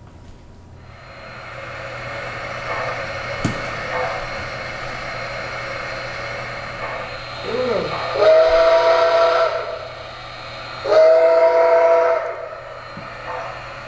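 Model steam locomotive's sound system: a steady steam hiss, then two blasts of its steam whistle, the first swooping up into pitch about seven and a half seconds in and held for over a second, the second about eleven seconds in.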